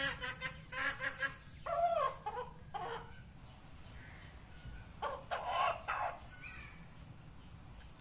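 Domestic chickens clucking: a quick run of clucks in the first second or so, a longer call that rises and falls near two seconds in, and another burst of clucks around five seconds, then quieter.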